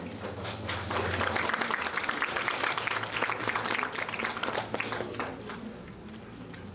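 Audience applauding, swelling about a second in and dying away about five seconds in.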